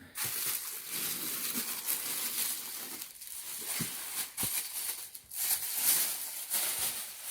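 Plastic packaging crinkling and rustling in irregular surges as it is pulled off a statue base during unboxing, with a few light knocks.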